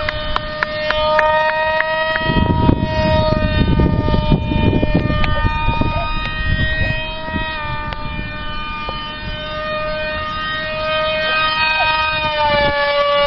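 Electric motor of an RC F-22 model jet running with a steady high whine. The pitch dips slightly at the start and shifts up and down again near the end, with a rough rumbling noise beneath it from about two seconds in.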